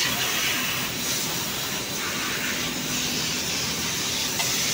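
Steady din of battery assembly-line machinery running, dominated by a strong hiss, with a single sharp click near the end.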